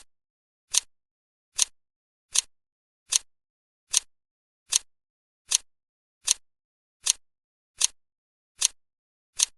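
Sharp, short clicks repeating evenly, about one every 0.8 seconds, with silence between them.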